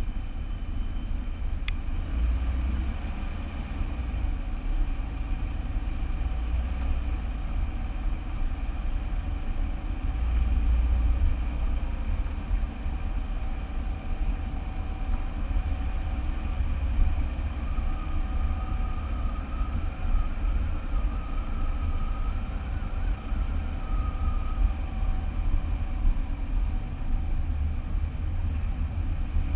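Car driving, with a steady low rumble of engine and road noise picked up by a car-mounted GoPro. There is a single short click about two seconds in.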